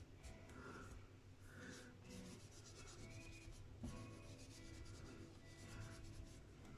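Faint hand rubbing on a guitar neck's finish, a few soft irregular strokes of abrasive or cloth against the lacquer.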